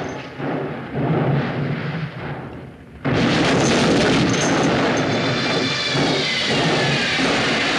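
Movie sound effects of a car tumbling down a dirt slope: a rumbling crash that dies away over the first few seconds, then a sudden loud onset of crashing and shattering glass that keeps going.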